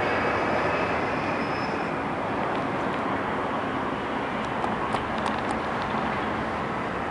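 Steady rumble of distant engine noise in the open air, with a few light clicks about four and a half to five and a half seconds in.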